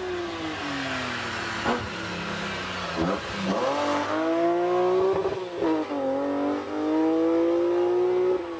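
BMW E36 3 Series Group A race car engine coming off the throttle and dropping in pitch as it brakes into a hairpin, with a sharp crack about a second and a half in. It then accelerates hard out of the bend with a rising note, changing up a gear about five and a half seconds in, and rises again before the next shift.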